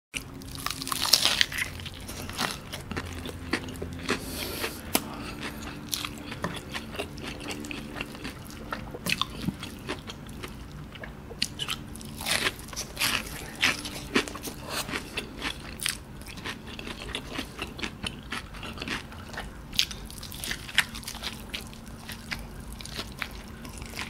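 Close-up eating sounds of a KFC Cheezilla Double Down: the breaded Zinger fried chicken fillets crunch sharply at each bite, with chewing in between.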